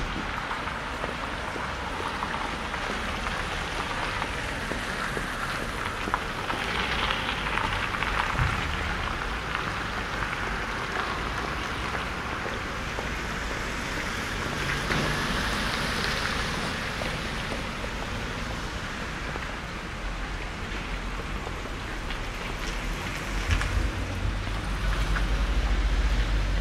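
City street traffic heard through a binaural microphone: a steady hiss of cars passing, swelling as vehicles go by about a quarter of the way in and again about halfway, with a deeper rumble of a vehicle building near the end.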